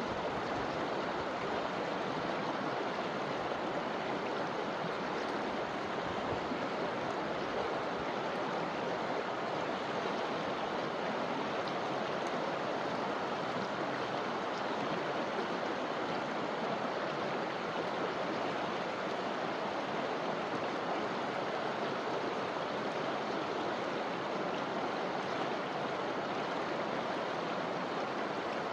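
Forest river running steadily over rocks: a constant rushing and splashing of water.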